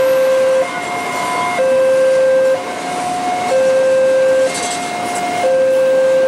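Railway level-crossing warning alarm sounding a two-tone signal, a lower and a higher tone alternating about once a second, over the rumble of a freight train of tank wagons passing over the crossing.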